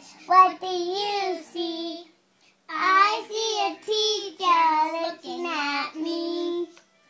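A young girl singing a made-up song with no accompaniment, in two phrases with a short break about two seconds in.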